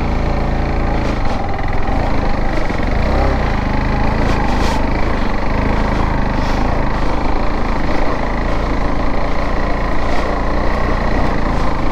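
Motorcycle engine running steadily under throttle at low speed on a rough dirt trail, with a few sharp knocks from the bumps. The rider is holding momentum so as not to stall on the loose climb.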